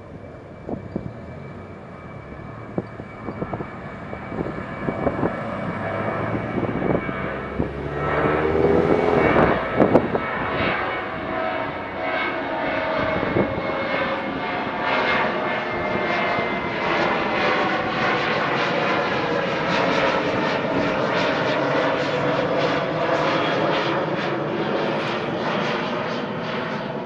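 A Boeing 737-700's CFM56-7B turbofan engines at climb power as the jet passes overhead after takeoff. It is a continuous jet roar that grows louder over about the first ten seconds and then holds steady, with slowly gliding tones running through it.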